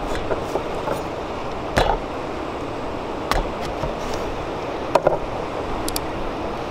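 Knife cutting through an orange on a wooden board: a few sharp knocks of the blade against the board, one about two seconds in, another past three seconds and a double knock about five seconds in, over a steady hiss.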